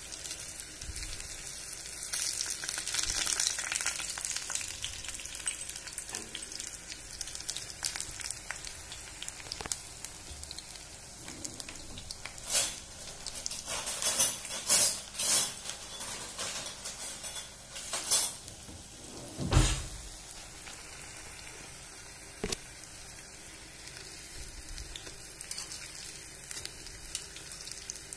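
Idli-batter bondas deep-frying in hot oil in an iron kadai, a steady sizzle. In the middle come a handful of sharp clinks and scrapes of a utensil against the pan as the bondas are turned, including one duller knock.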